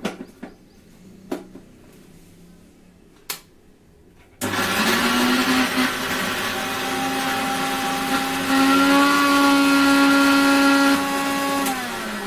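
Electric mixer grinder (mixie) grinding green chillies into a paste. A few knocks come first, then the motor starts suddenly about four seconds in and runs with a steady whine. Near the end it steps down and winds down, falling in pitch.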